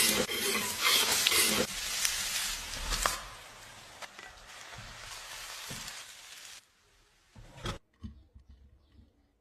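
Food sizzling in a hot pan, loudest for the first three seconds, then quieter and stopping about six and a half seconds in; a few faint knocks follow.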